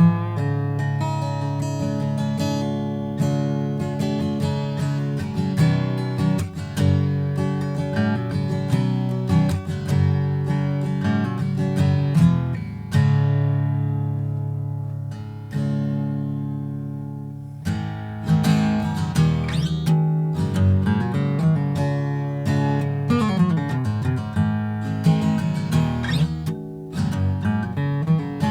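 Gibson J-45 Deluxe acoustic guitar, rosewood back and sides with a Sitka spruce top, played with a pick in a run of picked notes and strummed chords. A little under halfway through, one chord is left ringing and fades away before the playing picks up again.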